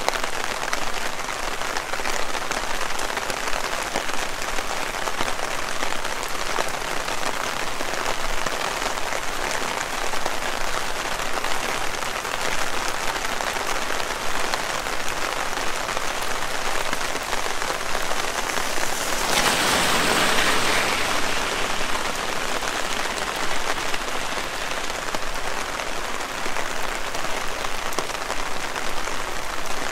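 Heavy rain falling steadily, an even hiss of drops on surfaces, with a brief louder swell of noise about two-thirds of the way through.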